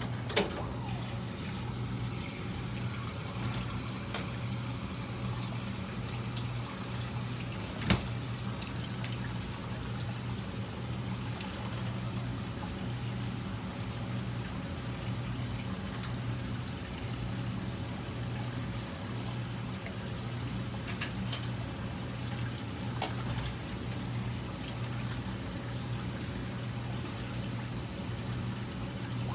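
A steady low hum with a hiss over it, broken by a few short sharp clicks; the loudest click comes about 8 seconds in.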